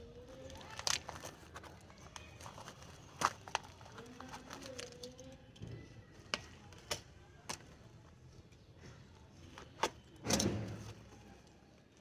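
Courier packaging being handled and pulled apart to free a potted sapling: scattered sharp clicks and crinkles, with a louder rustle about ten seconds in.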